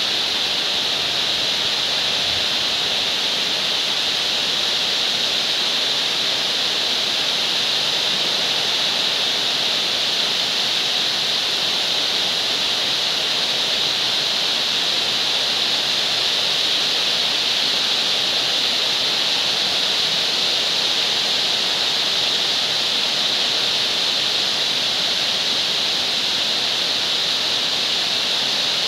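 Heavy rain pouring steadily, a dense even hiss that keeps the same level throughout.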